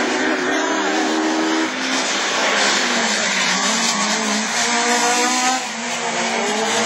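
Rallycross cars racing on a loose dirt track, their engines running at high revs, with the pitch holding and then climbing as they accelerate out of corners, over a steady hiss of tyre and gravel noise.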